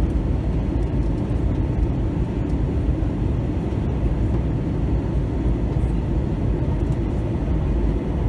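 Airbus A321 in flight, heard from inside the cabin: a steady, even rush of engine and airflow noise, mostly low-pitched.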